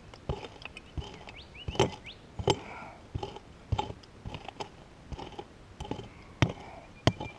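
Pick striking and chopping into hard, dry dirt, about a dozen sharp blows at an uneven pace of roughly three every two seconds, digging out a metal-detector target.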